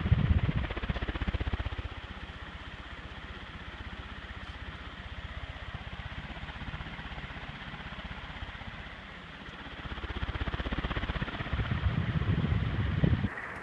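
Windward 48-inch ceiling fan running on high speed, its blades pushing air with a steady rush and a rapid low pulsing that swells and fades. The sound changes abruptly just before the end.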